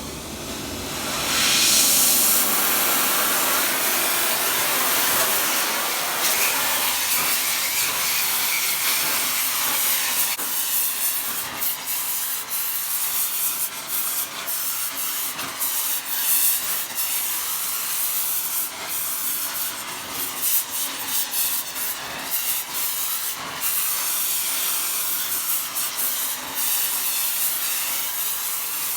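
Gas torch flame hissing steadily while heating a ring gear to sweat it onto the flywheel, with scattered light clicks and ticks from about ten seconds in.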